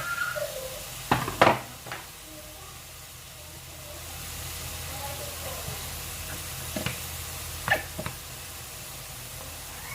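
Seafood and holy basil stir-frying in a wok: a steady sizzle, with the spatula scraping and knocking against the pan, a cluster of sharp knocks about a second in and more around seven to eight seconds.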